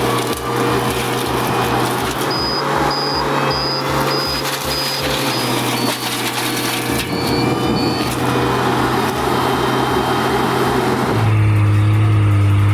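Skid steer running a forestry mulcher head, its engine drone steady under the grinding and crushing of wood. About 11 seconds in, the sound switches abruptly to a louder, smoother engine drone.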